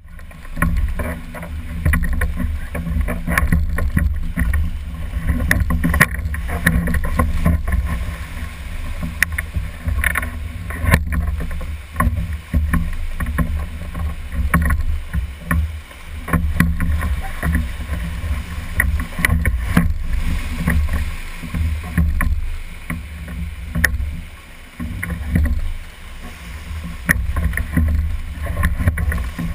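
Whitewater rapid rushing around a rowed raft, with a heavy low rumble that swells and fades and frequent short knocks and clicks.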